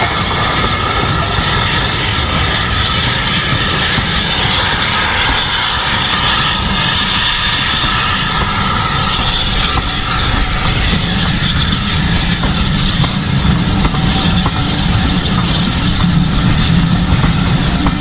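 BR Standard Class 5 4-6-0 steam locomotive with Caprotti valve gear passing close under steam, its exhaust barking loudly. Its train of coaches then rolls past with wheels running over the rails.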